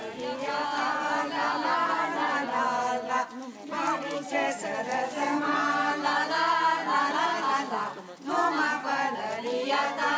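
A group of voices singing a Romanian folk song together, unaccompanied, with short breaks between phrases.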